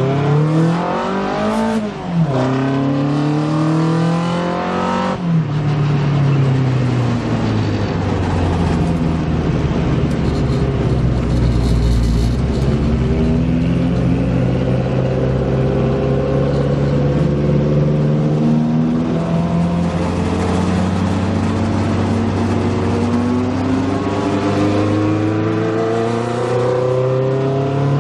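A Fiat 126 race car's tuned 1,300 cc engine, heard from inside the cabin, pulling hard through the gears. The engine note climbs and drops sharply at two quick gear changes in the first five seconds, then climbs slowly in two long pulls.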